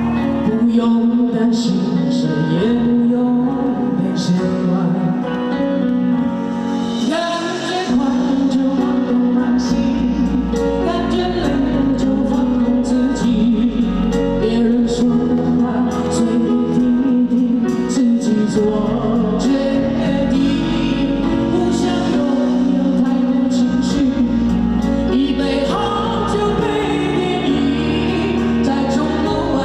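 Live concert music: a singer with band accompaniment. The bass fills in about eight seconds in.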